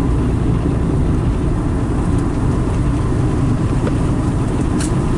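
Steady low rumble of a car running, with a few faint clicks.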